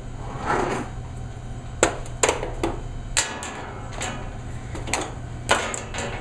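Several sharp clicks and knocks, with a short scrape about half a second in, as the Kenmore washing machine's selector switch and knob are handled for a test fit.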